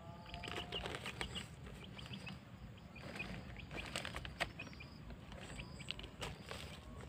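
Gloved hands crumbling potting soil into a plastic nursery bag: scattered soft patters, taps and rustles. A bird chirps repeatedly in the background.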